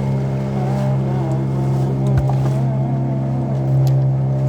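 Boat's inboard engine running steadily at an even, low pitch, with a single knock about two seconds in.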